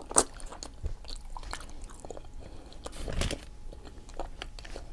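Close-miked chewing and biting of spicy boiled octopus: wet mouth sounds and sharp clicks, with a loud bite just after the start and another about three seconds in.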